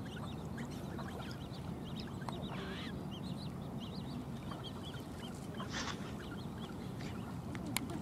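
Tufted duck ducklings peeping: many short, high calls scattered throughout, with a couple of louder calls in between.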